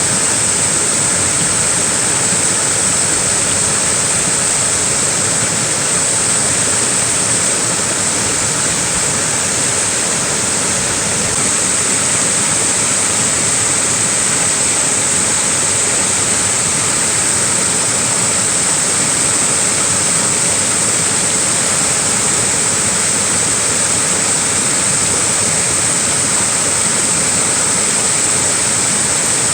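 Small waterfall rushing steadily, a constant hiss of falling water with no breaks.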